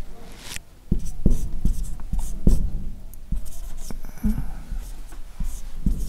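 Marker pen writing on a whiteboard: a run of short strokes and taps at an uneven pace.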